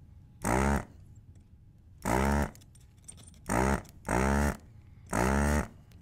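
Hakko FR-301 desoldering gun's built-in vacuum pump switched on in five short bursts, each under a second, spinning up quickly to a steady buzzing whine as it sucks molten solder off the crossover board's joints.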